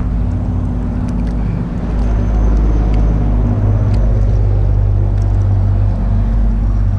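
Motor engine running steadily: a low, even drone that grows louder about two seconds in and then holds.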